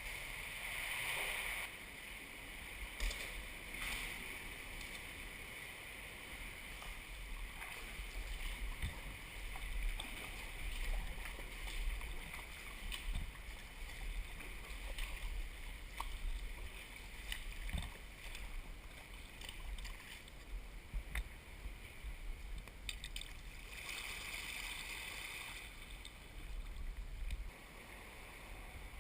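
Water swishing and gurgling around a sea kayak as it is paddled, with scattered small splashes and a low rumble throughout.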